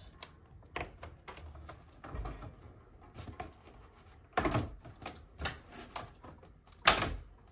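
Plastic parts of a ductless mini-split head unit clicking and snapping as they are worked loose and popped out by hand. There are scattered light clicks, a louder clack about halfway through and another near the end.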